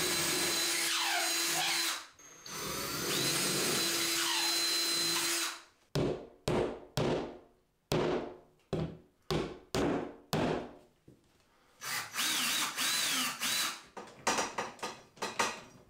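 Power drill with a 1/4-inch bit boring holes in drywall in two steady runs. This is followed by about ten sharp hammer taps driving a molly anchor into the wall, and the drill running briefly again near the end.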